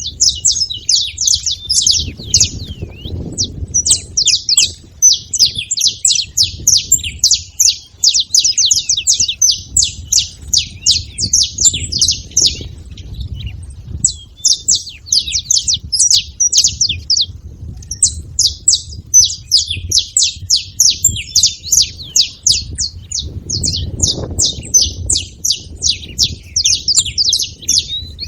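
Saffron finch chirps in a fast, dense chatter, with a short break about halfway through. A low rumble runs underneath.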